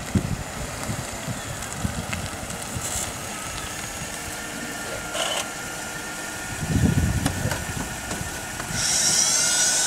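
Mercedes-Benz S-Class car idling, with a steady low rumble. About nine seconds in, a loud high-pitched whine starts and holds.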